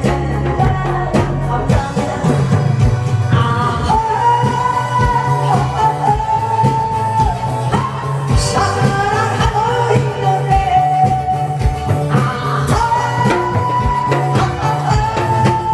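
A song with a singer holding long, drawn-out notes over backing music with a steady drum beat.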